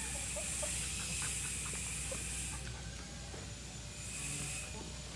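Outdoor ambience dominated by a high, steady hiss that cuts out about two and a half seconds in and returns briefly near the end, with a few faint light clicks in the first half, such as footsteps and a dog's claws on pavement.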